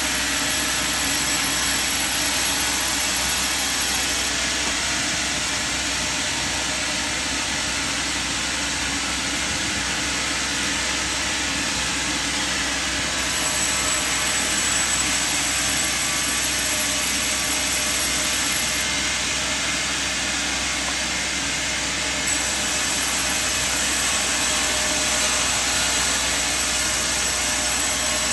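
Sawmill machinery running steadily. It gets louder, with a high hiss on top, three times for several seconds each: at the start, about halfway through, and near the end.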